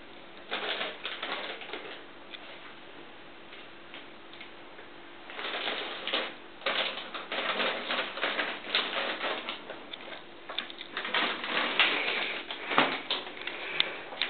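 Irregular clicking and rattling of a small hard object being handled and knocked about, in a short cluster about half a second in and a longer, busier run from about five seconds in.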